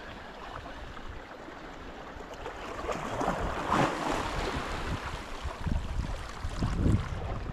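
Small waves washing against rocks at the sea's edge, swelling about three to four seconds in, with wind gusting on the microphone.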